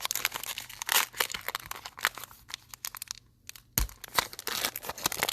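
Foil trading-card pack wrapper being torn open and crinkled by hand, a run of crackles with a brief pause and a single thump a little before 4 seconds in.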